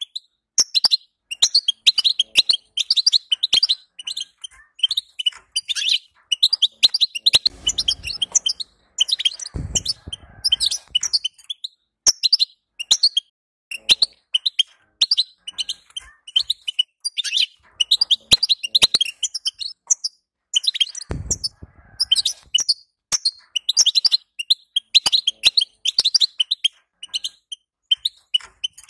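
European goldfinch twittering: rapid, high chirps in quick phrases broken by short pauses. A few soft low thuds come in between, around the middle and again later.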